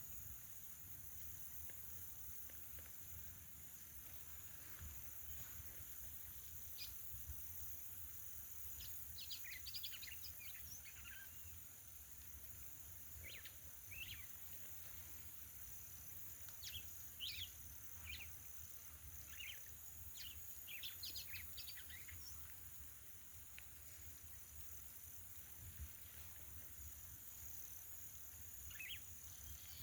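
A small bird singing faintly in short clusters of quick high chirps, with pauses of several seconds between them, over a steady high hiss.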